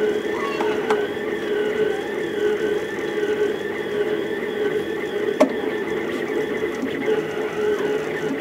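Rostock delta 3D printer's stepper motors whining as it prints at speed, a steady tone under higher tones that rise and fall over and over as the head moves. A single sharp click about five seconds in.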